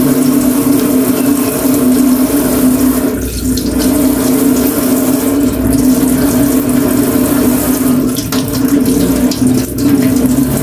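Tap water running steadily into a sink, over a steady hum.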